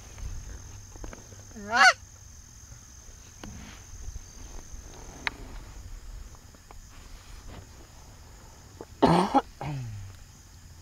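Canada goose honks: a single loud rising honk about two seconds in, then a louder honk with a falling tail near the end.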